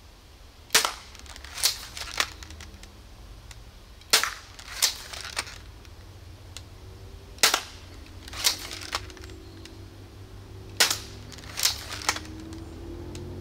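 3D-printed repeating pistol crossbow shot four times in quick succession, about one shot every three seconds: each shot a sharp snap of the released string, followed within a second or so by lighter clacks as the action is cycled to cock and load the next bolt.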